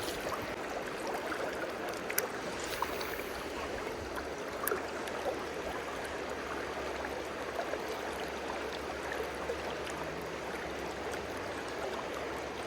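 River water running steadily, with a couple of faint clicks.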